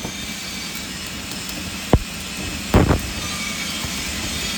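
Stick (shielded metal arc) welding with a 3.2 mm electrode at about 100 amps: the arc's steady crackling hiss, broken by two short thumps about two and three seconds in.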